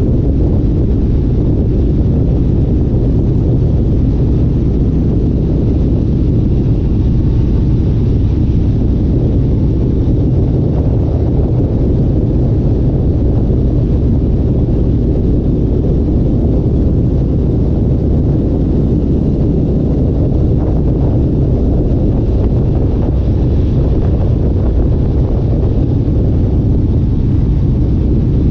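A loud vehicle engine running steadily as a low rumble, with wind noise over it.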